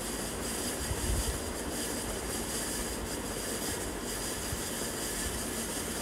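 Steady background hiss with no distinct events.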